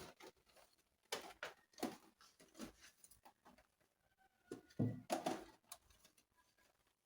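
Food containers being handled and set down while a fridge is packed: scattered light knocks and rustles, the loudest about five seconds in.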